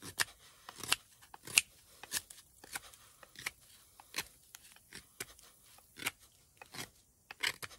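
Reiff Knives Circadian bush knife, with its high saber grind, shaving curls off a wooden stick: a string of short scraping strokes, roughly two a second.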